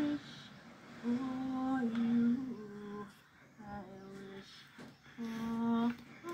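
A woman singing unaccompanied in slow, held notes, a few short phrases with pauses between them.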